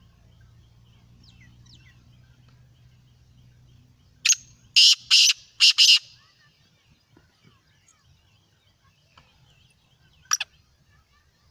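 Black francolin calling: a loud, harsh call of four grating notes about four seconds in, lasting under two seconds, then one short sharp note near the end.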